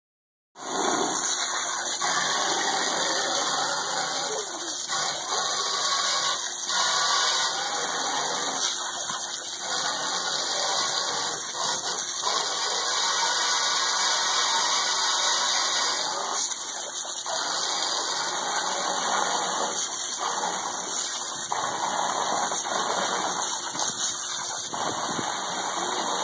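Garden hose running, its stream splashing into a tub of water, the splash briefly breaking off now and then as a dog bites at the water.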